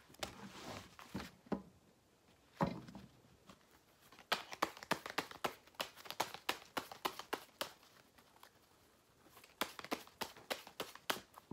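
Tarot cards being handled on a table: quiet, light clicks and card slaps, coming thick and fast in two busy runs, the second near the end.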